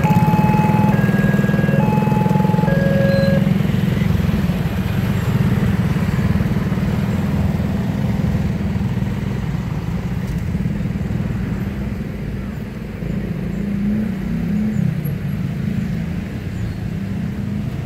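Many motorcycle engines running as riders pull away together, with a brief rise and fall in engine pitch about two thirds of the way through. For the first three seconds or so a railway level crossing's electronic warning alarm sounds short alternating beeps at two or three pitches, then stops as the barrier opens.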